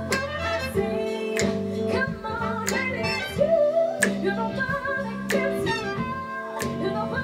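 A woman singing an R&B-pop song with a lot of vibrato, backed by a live band, with steady bass notes and a sharp beat about every 1.3 seconds.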